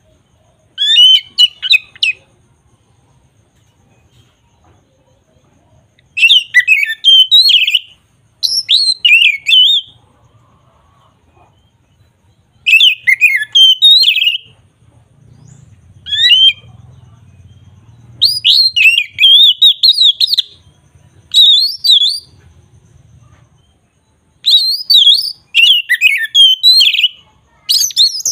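A bird singing loud, quickly warbling phrases of one to three seconds, repeated about nine times with short pauses between.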